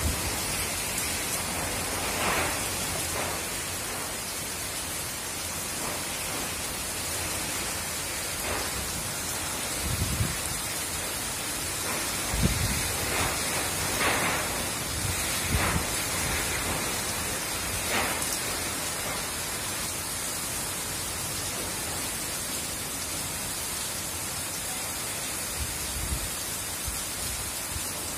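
Tropical cyclone wind and heavy rain making a steady hiss, with several short low thumps of gusts hitting the microphone.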